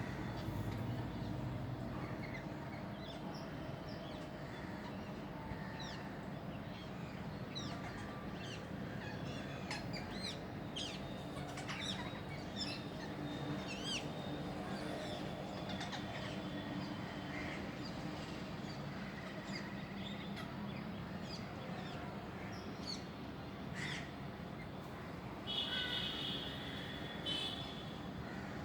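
Parrots calling: many short chirps and squawks, with a louder, harsher run of calls near the end, over a steady low background rumble.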